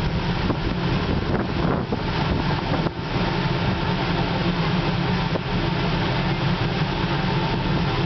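Steady drone of a large long-distance car ferry's engines under way, heard from the open deck with wind rushing past.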